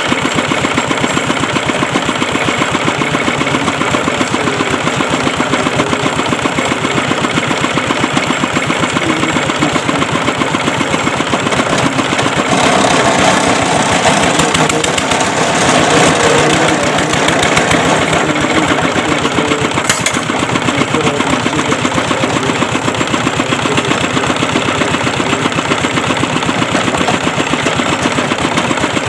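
Engine of a tube-well boring machine running steadily, with fast, even firing beats. From about 12 to 17 seconds in, a louder, rougher noise rises over it, and a single sharp click comes near 20 seconds.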